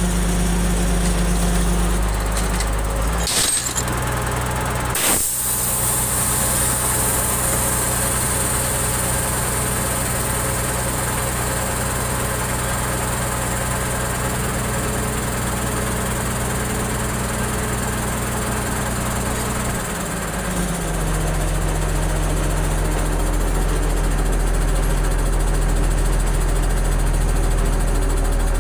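Heavy engine running steadily under load, its speed dropping a few seconds in and shifting again about twenty seconds in. Two sharp knocks come a few seconds in, followed by a hiss.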